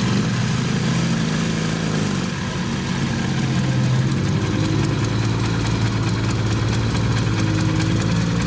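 Vehicle engines running steadily at low revs, with small shifts in pitch.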